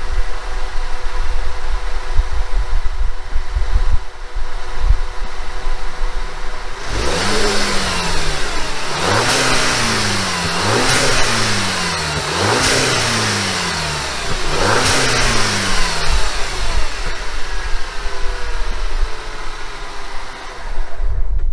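VW MK6 GTI's turbocharged 2.0-litre four-cylinder idling, then blipped five times about every two seconds, each rev rising and falling back. A hiss at the top of each rev is the diverter valve, fitted with a spacer, venting boost as the throttle closes. It then settles back to idle.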